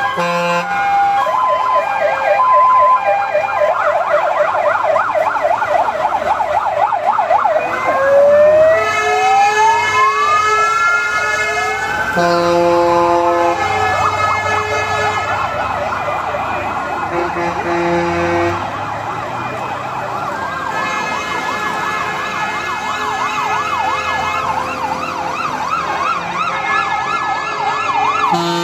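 Several fire engine sirens sounding at once as a convoy of fire trucks passes: a fast warbling yelp throughout, with a slow wail rising and falling about a third of the way in. Short, low, steady horn-like tones break in a few times.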